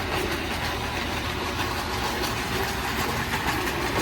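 1948 Marx Commodore Vanderbilt toy electric locomotive running steadily on its track: a continuous motor whir with the wheels clicking over the rails. The freshly serviced motor, with new brushes, runs smoothly.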